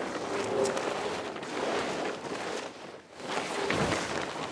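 Large plastic tarp rustling as it is dragged off by hand, in two long surges with a short lull about three seconds in.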